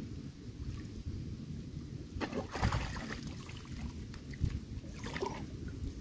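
Water splashing and sloshing around a person wading chest-deep, louder from about two seconds in as a rubber boot is lifted out of the water and tipped. A low wind rumble runs underneath.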